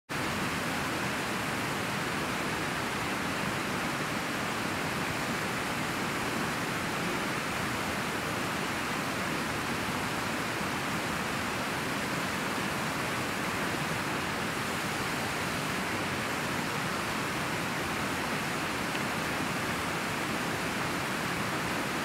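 Mountain waterfall cascading over rocks close by: a steady, even rush of white water.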